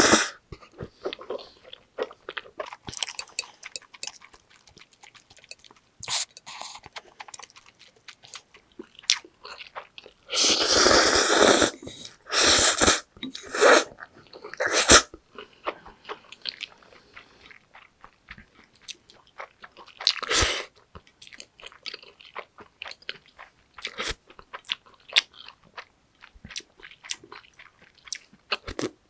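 Close-miked chewing and biting of spicy cheese noodles and rice cakes, with wet mouth clicks throughout and a few longer, louder eating noises around the middle.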